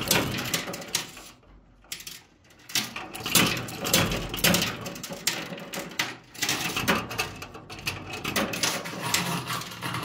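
Coins clinking and clattering in a coin pusher arcade machine: a run of light metallic clinks, with a short lull between about one and three seconds in.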